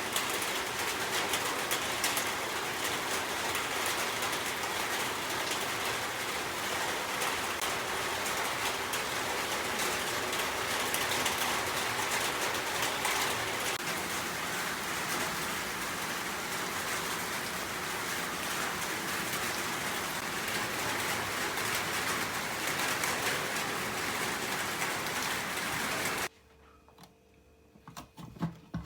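Steady rain falling, a dense continuous hiss that cuts off suddenly about 26 seconds in.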